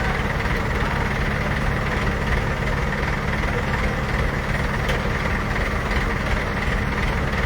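Heavy diesel engine idling steadily, a low even drone with no change in speed.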